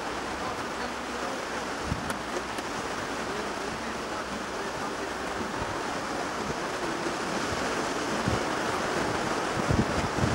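BR Standard 2-6-4T steam locomotive 80079 drawing slowly in: a steady rushing hiss that grows louder over the last few seconds, with a few low thumps near the end.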